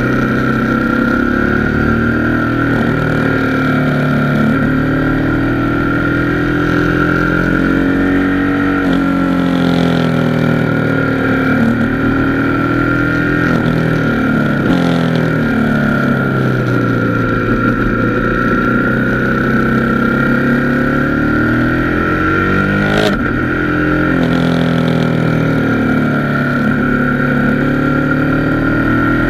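Motorcycle engine running on the move, its pitch rising and falling over several seconds as the throttle opens and closes through the bends, over a low rush of wind. A steady high whine runs throughout, and a single sharp click comes about three-quarters of the way through.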